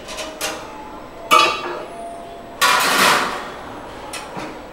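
Stainless steel cover plate of a grill box being handled and lifted: a sharp metal clink about a second in, a longer scraping clatter of metal on metal near the middle, and lighter taps and clicks.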